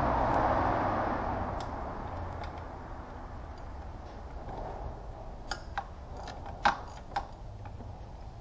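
Small metal parts and tools clicking and tapping as hands work in a car's engine bay: a few sharp, separate clicks in the second half, the loudest around two thirds of the way in. A steady rushing noise fades away over the first couple of seconds.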